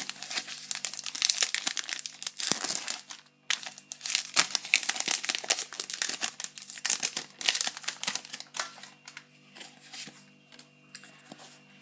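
Foil Pokémon booster-pack wrapper being torn open and crinkled by hand, a dense run of sharp crackles with a brief pause about three seconds in. The crackling thins to quieter rustling near the end as the cards are drawn out of the pack.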